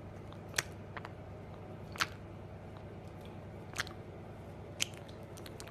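A parrot biting and crunching with its beak: four sharp cracks a second or so apart over a steady low hum.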